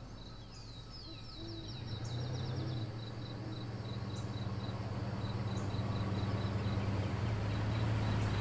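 Evening ambience of crickets chirping steadily, about twice a second, with a bird's quick run of falling whistles in the first few seconds. Under them a car's engine hums low and grows steadily louder as it approaches.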